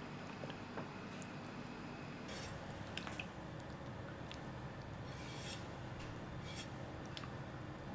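Knife slicing through the skin and flesh of a large raw fish: faint wet squishing and rubbing, with a few short scrapes of the blade.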